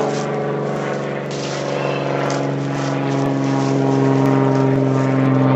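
A steady engine hum, one unchanging pitch with many overtones, growing slightly louder about halfway through.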